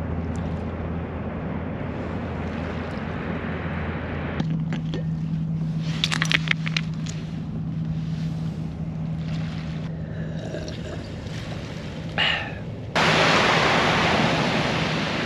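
Wake waves from passing boats washing onto a shell beach, over a steady low drone of a distant boat engine. A few sharp clicks of a thermos cup being handled come partway through. About thirteen seconds in, the surf suddenly becomes louder.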